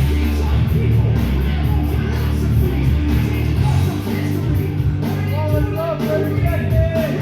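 Loud music with a heavy bass and a singing voice, the voice standing out most in the last couple of seconds.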